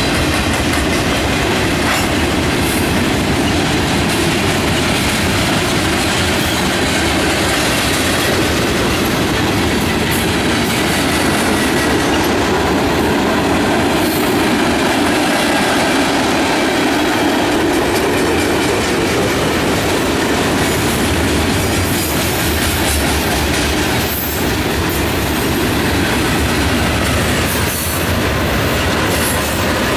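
CSX manifest freight train of boxcars, tank cars and covered hoppers rolling past, a loud steady rumble of steel wheels on rail with clickety-clack over the rail joints.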